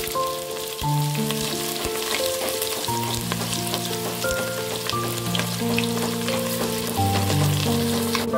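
Sliced onions and green chillies frying in hot oil in a steel pot: a steady sizzle with many fine crackles. Background music with held, stepping notes plays alongside.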